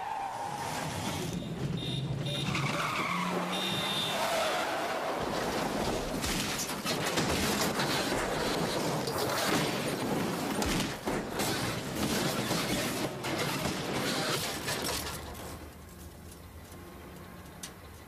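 A station wagon skidding across gravel and rolling over: tyres sliding and scraping, then a long run of crashing impacts as the car body tumbles. The crashing dies away about fifteen seconds in, leaving a low hum.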